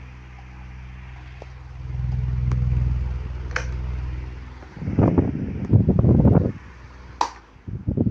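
Matsunichi standing electric fan running with a steady low motor hum that stops about two-thirds of the way through. A few sharp clicks and rough bumping handling noises are heard, the loudest just before the hum stops and again near the end.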